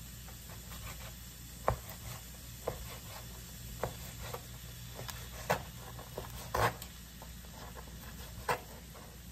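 Kitchen knife cutting raw chicken tenderloin on a plastic cutting board: irregular knocks of the blade reaching the board, roughly one a second. Under them is a faint steady sizzle from onions and mushrooms sautéing in a frying pan.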